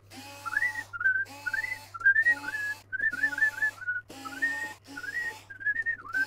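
A man whistling a tune in short rising and falling phrases, with a cordless electric screwdriver whirring in short runs under it as screws are backed out.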